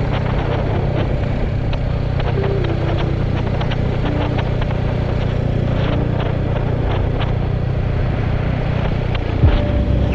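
Royal Enfield Hunter 350's single-cylinder engine running steadily on the move, with wind noise over the helmet chin-camera microphone; a sudden low thump about nine and a half seconds in.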